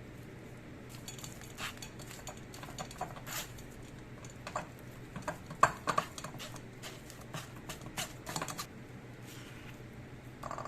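Irregular light taps and clicks of hands and utensils at work during food preparation, with one sharper knock about halfway through.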